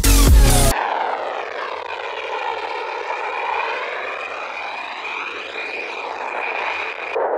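A short end of electronic dance music cuts off under a second in. It gives way to an F-15 fighter's twin jet engines at full afterburner during takeoff, a steady rushing jet noise with a sweeping, phasing sound as the jet lifts off and climbs away.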